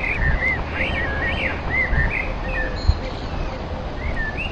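Birds chirping in short, repeated, arching chirps over a steady low rumble, with a soft thump about three seconds in.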